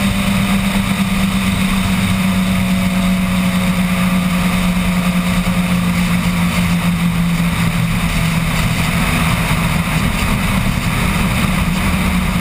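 Twin outboard motors of a 26-foot Talon custom catamaran race boat running at high speed with a steady engine note, over the rush of wind and water in the open cockpit.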